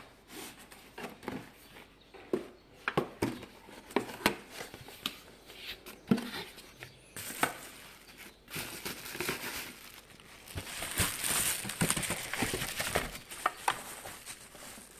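Cardboard packaging being opened and handled, with short knocks and scrapes. About halfway through, plastic bubble wrap crinkles and rustles steadily as a wrapped part is lifted out and handled; this is louder.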